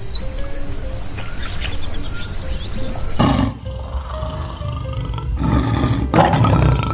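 A big cat roaring twice, a short roar about three seconds in and a longer one near the end, over background music.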